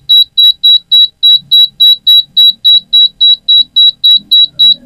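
Yongma digital rice cooker's buzzer beeping without stop: short, high-pitched, evenly spaced beeps about four a second. It is the fault symptom that comes with the blinking display, which the technician traces to an unstable 5 V supply from the power supply section.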